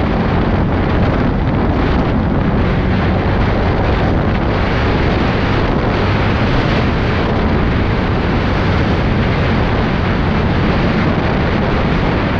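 CFMOTO CForce 625 ATV's single-cylinder engine running steadily under way, heard through heavy wind buffeting on a helmet-mounted microphone.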